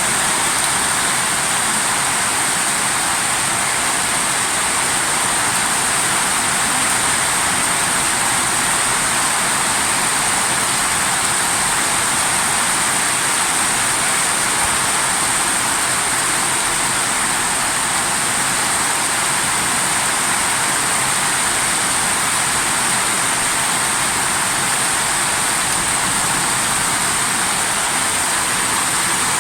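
Torrential water rushing, loud and steady, with no breaks or changes.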